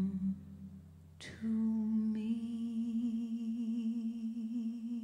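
A low orchestral chord dies away, then a woman hums one long held note with a gentle vibrato into a microphone.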